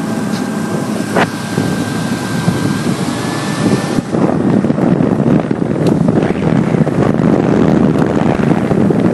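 Suzuki 140 hp outboard motor running with the boat under way, with a steady high whine that rises slightly about three seconds in. From about four seconds in, wind on the microphone and water rush grow louder over the engine.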